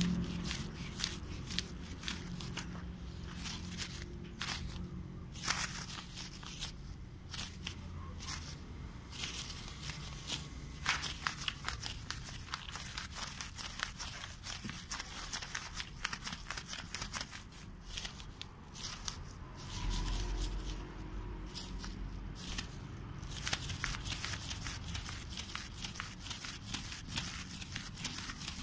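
Gravel crunching and crackling underfoot in many small scattered clicks, over a low rumble.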